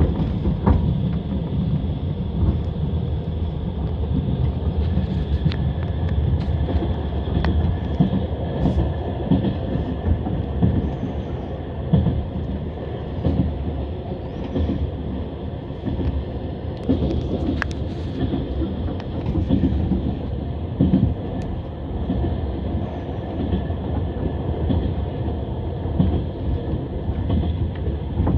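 Passenger train running at speed, its wheels knocking over the rail joints in a steady clickety-clack over a loud low rumble, with scattered sharp clicks and rattles.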